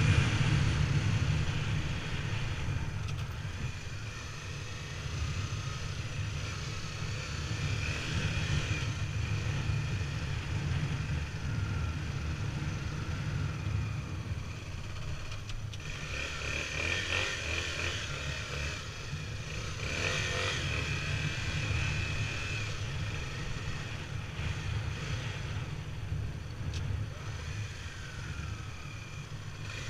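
Honda XR250 Tornado's single-cylinder four-stroke engine running as the motorcycle is ridden over a sandy track.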